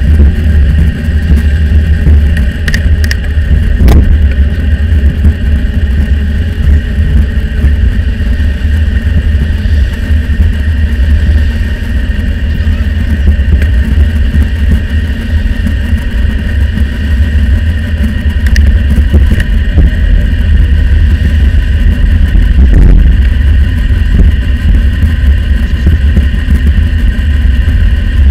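Heavy, steady low rumble of wind buffeting the microphone of a bicycle-mounted camera riding at speed, mixed with road noise and passing cars, played back at double speed.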